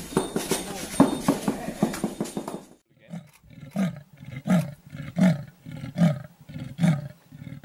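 Leopard giving its sawing call: a regular series of short, rasping grunts, about one every 0.7 s, beginning about three seconds in. It is preceded by a dense, jumbled stretch full of knocks.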